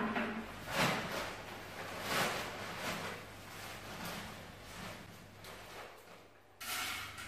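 Soft scraping or rustling noises in several separate strokes, the loudest near the end.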